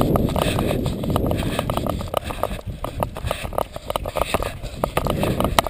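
A bicycle being wheeled along on grass: quick, irregular clicking and rattling, with the rear hub's freewheel ticking, over a low rumble of wind and handling on the microphone.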